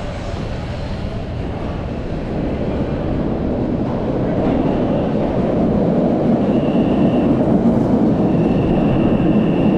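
MBTA Orange Line subway train arriving at an underground platform, its rumble growing steadily louder as it pulls in. A high squealing tone comes in briefly about six and a half seconds in and again from about eight and a half seconds.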